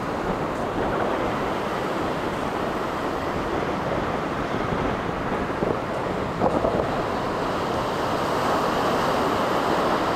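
Ocean surf breaking and washing up the beach, with wind buffeting the microphone; it grows a little louder near the end.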